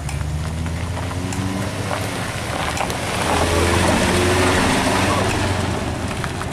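Toyota Avanza's engine pulling hard as the loaded car restarts from a standstill partway up a steep dirt slope. The engine note grows louder about three seconds in and eases off near the end.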